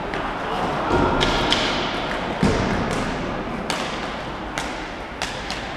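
Rink hockey play: sharp knocks of wooden sticks and the hard ball against each other and the boards, one every half-second to second, the loudest about two and a half seconds in, over the steady rolling of quad skates on the hall floor.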